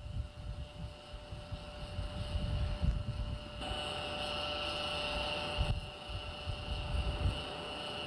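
Airport ramp background noise: a steady high whine from distant aircraft or ground equipment, with gusts of wind buffeting the microphone. The whine gets louder about three and a half seconds in and drops back near six seconds.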